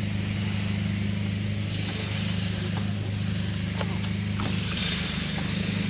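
Steady low mechanical hum under outdoor background hiss, with a few faint ticks and the hiss swelling briefly about two seconds and five seconds in.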